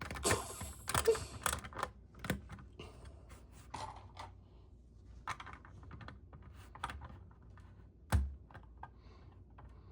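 LEGO bricks being handled and pressed together: irregular small plastic clicks and clatter, denser in the first second or so, with one heavier knock about eight seconds in.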